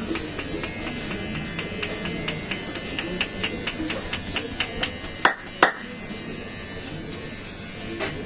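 Rhythmic hand tapping of a barber's percussion massage, about four sharp slaps a second for some five seconds. Then come two louder slaps half a second apart and one more near the end, over a faint steady buzz.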